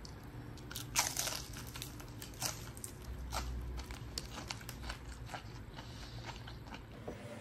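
Crisp battered tempura vegetables being bitten and chewed: a run of separate crunches, the loudest about a second in.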